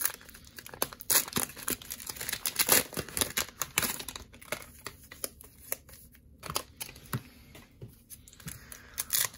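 Plastic cello-pack wrapper of trading cards crinkling and tearing as it is pulled open by hand, with dense crackling in the first few seconds that thins out later.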